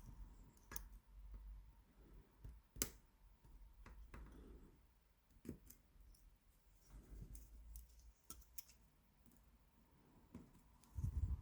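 Sparse small metallic clicks and light scraping from picking tools working the pins of an 8-pin tubular cam lock under tension, with one sharper click about three seconds in.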